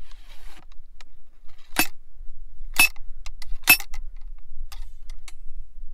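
Steel ramrod driven down the bore of a Model 1848 tige rifle in three hard metallic strikes about a second apart, followed by lighter clinks. It is ramming the lead bullet onto the steel pillar in the breech, which expands it into the rifling.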